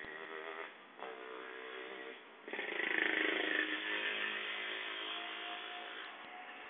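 Street traffic: vehicle engines passing along the road, growing suddenly louder about two and a half seconds in as a vehicle comes close.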